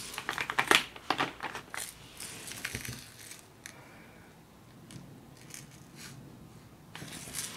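Small plastic clicks and rattles from handling containers of leftover diamond painting drills. The clicks come in a cluster over the first second and a half, a few more follow, and they pick up again near the end.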